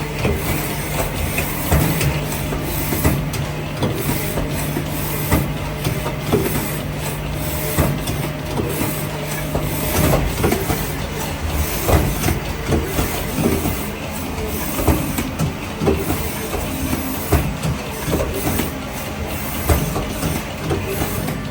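CMZ TX66-Y2 Quattro twin-spindle CNC lathe running, with a steady low hum, a hiss and irregular clacks and knocks throughout. The hum shifts slightly in pitch near the end.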